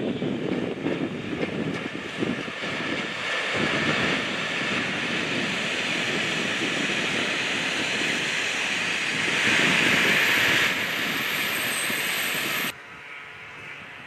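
Passenger train, a class 163 electric locomotive and its coaches, rolling past on the rails: a steady rushing rumble of wheels on track that turns hissier as the coaches go by. A thin high whine joins near the end, then the sound cuts off suddenly, leaving faint outdoor ambience.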